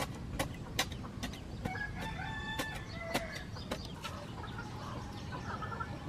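A rooster crows once, starting a little under two seconds in and lasting about a second and a half, followed by chickens clucking. A series of sharp knocks or taps sounds about twice a second in the first half.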